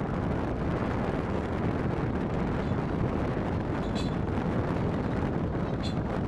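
Wind buffeting the microphone: a steady, deep rumbling rush of noise.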